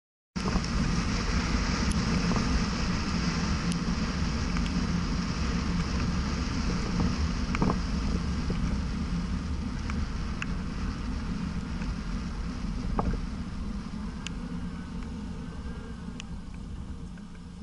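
A car driving on a wet road, heard from inside the cabin: steady road and engine noise with a few light ticks. It grows quieter near the end as the car slows.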